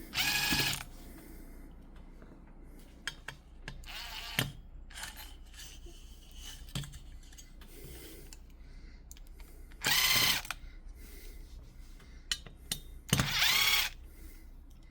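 Small electric screwdriver running in four short bursts, with light clicks and handling between them, backing out the screws that hold a graphics card's heatsink.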